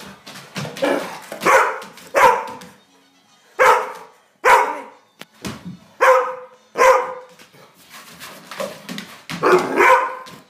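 A large dog barking loudly and repeatedly, in irregular spells of sharp barks with short pauses between them. Quieter low sounds come between the barks.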